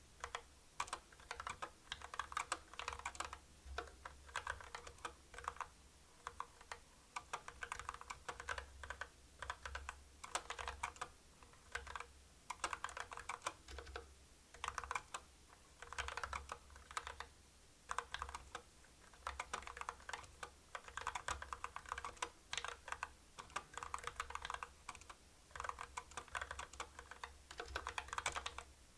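Typing on a CU65 65% mechanical keyboard with stock Kailh Box Black linear switches: rapid key strokes in bursts of a few seconds, each broken by a brief pause.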